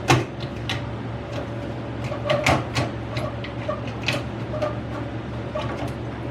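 Irregular clicks and knocks of computer parts being handled while a desktop PC is worked on, over a steady low hum. A sharp knock comes right at the start and a quick cluster of clicks about two and a half seconds in.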